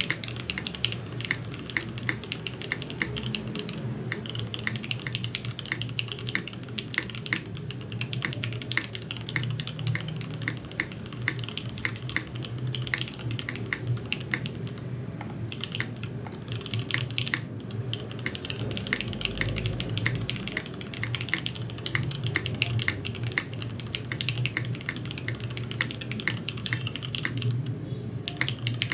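Fast, continuous typing on a Nuxros Krush65 R2 custom mechanical keyboard: lubed Cherry MX Hyperglide Black linear switches under GMK Maestro keycaps, on a top-mounted aluminium plate with no foam. The keystrokes come in a dense stream of clicks and ease off slightly near the end.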